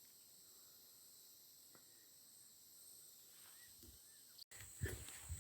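Near silence: faint outdoor ambience with a steady high-pitched insect drone and a few faint chirps.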